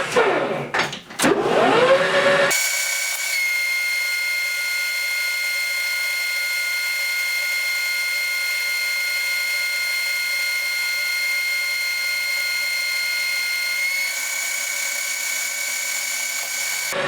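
Metal lathe taking a deep roughing cut along a shaft, about 50 thousandths per side. It starts with a brief rise and fall in pitch, and after about two and a half seconds settles into a steady high-pitched whine.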